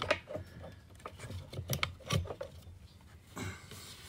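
Handling noise from working the fuel pump's plastic hose and wiring in the tank opening: scattered light clicks and taps, with a short rustle near the end.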